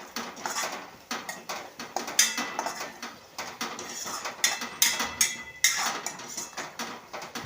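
Spoon stirring spiced tomato masala in a cooking pan: irregular metal clinks and scrapes against the pan, with a few louder knocks.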